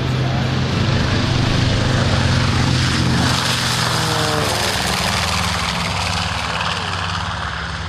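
North American B-25 Mitchell's twin Wright R-2600 radial engines at full takeoff power as the bomber rolls, lifts off and climbs away. The engine note drops in pitch as it passes, about halfway through, and then slowly fades.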